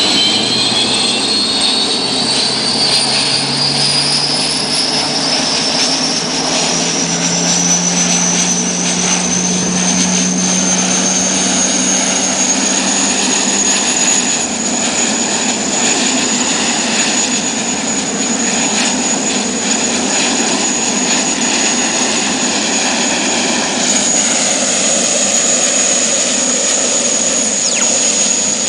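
Gas turbine engines of an offshore race boat starting up: a high whine climbs steadily in pitch for about twelve seconds as the turbine spools up, then holds at a steady high whine over a rushing roar. Near the end, a second whine begins to rise.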